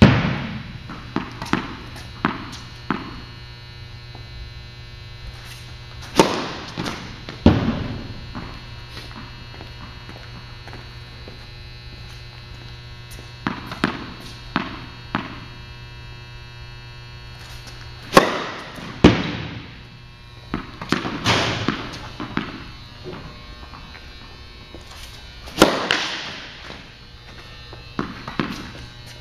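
Tennis serves on an indoor court: several sharp racket-on-ball strikes, each followed about a second later by a thud, with runs of lighter knocks as the ball is bounced on the court before serving. Every hit echoes in the hall over a steady low hum.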